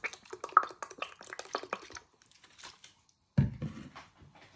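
Soy sauce dripping and glugging from a bottle into a chopper jar for about two seconds, a quick run of small liquid clicks. Then a single heavy thump about three and a half seconds in, followed by a few light knocks.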